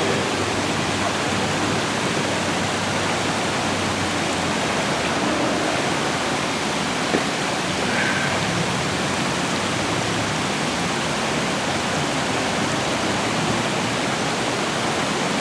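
Steady rush of falling water from a mini golf course's artificial waterfall.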